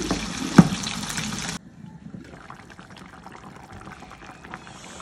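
Salmon paksiw bubbling in its vinegar broth in an uncovered pan as the liquid boils down: a busy bubbling hiss with a couple of sharp pops. It cuts off abruptly about a second and a half in, leaving a much quieter simmer with faint ticks.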